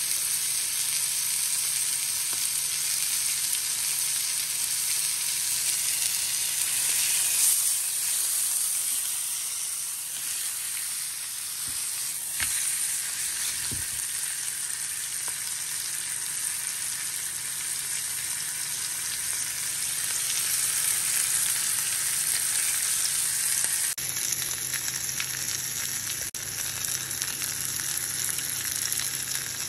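Rack of lamb searing in olive oil in a frying pan: a steady sizzle.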